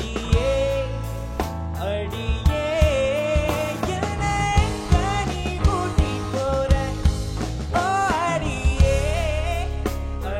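A male singer singing a Tamil film song with a band behind him: drum kit hits and a steady bass line under a melody that holds and bends notes with vibrato.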